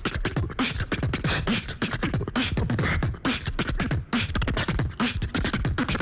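Beatboxing into a handheld microphone over a stage sound system: a fast, unbroken run of vocal clicks and snares with deep kick-drum thumps.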